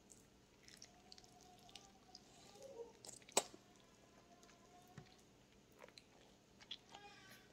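A child chewing soft soursop fruit: faint, with scattered small clicks and one sharp click about three and a half seconds in.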